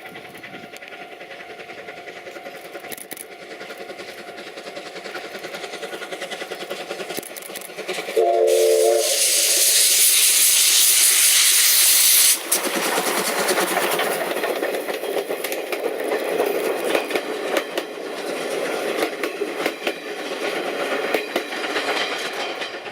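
A Japanese level-crossing bell rings steadily as the C12 steam locomotive approaches, growing louder. About eight seconds in, the locomotive gives a short whistle, followed by a loud hissing rush for about four seconds. The train then rolls past with a rhythmic clatter of wheels over the rail joints.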